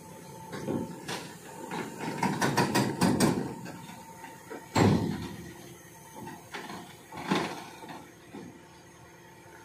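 Crawler excavator on a lowbed trailer clanking and knocking as it shifts its weight: a quick run of knocks about two to three seconds in, a single loud bang near five seconds, and another knock past seven seconds.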